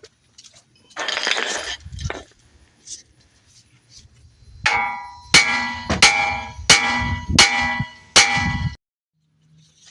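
Hammer striking steel suspension parts six times, each blow ringing, about one and a half strikes a second: knocking the ball joint loose from the steering knuckle. A short noisy burst comes about a second in, before the strikes.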